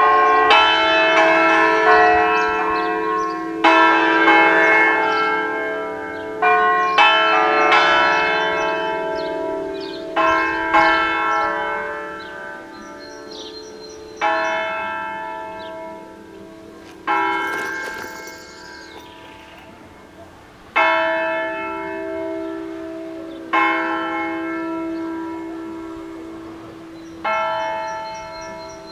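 Five Ambrosian-style church bells in D#3, cast by the Bianchi foundry, swung full circle in a distesa peal. The strikes come thick at first and then further and further apart, each left to ring on and die away.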